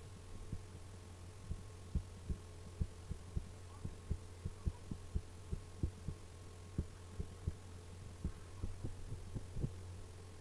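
Dull, low knocks at uneven spacing, about two a second, from clicking while drawing on the computer. A steady electrical hum runs underneath.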